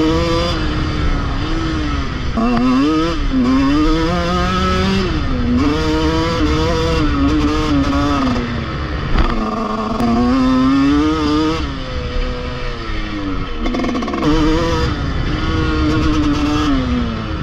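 TM 125 two-stroke motocross bike's single-cylinder engine revving hard and dropping back again and again as the rider throttles and shifts around the track. There is a sharp thump about halfway through.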